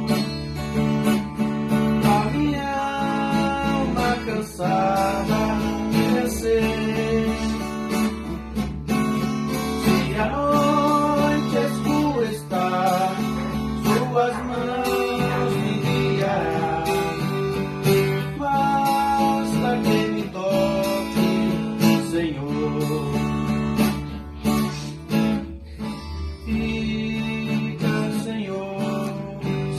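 Viola caipira and acoustic guitar (violão) playing together, strummed chords with a plucked melody line.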